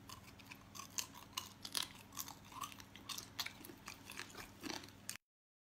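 A person chewing crunchy food close to the microphone, with irregular crisp crunches several times a second. The sound cuts off abruptly about five seconds in.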